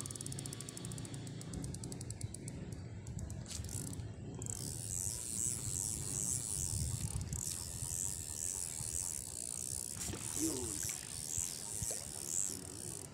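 Outdoor ambience: a high insect buzz that pulses about once or twice a second, over a steady low rumble.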